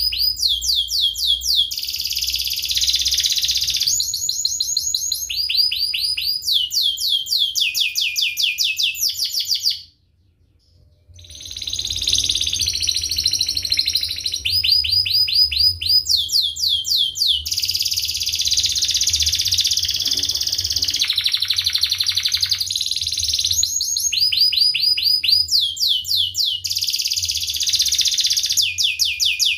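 Domestic canary singing: fast, tight rolling trills of rapidly repeated high chirps, each series sliding down in pitch, with a brief pause about ten seconds in.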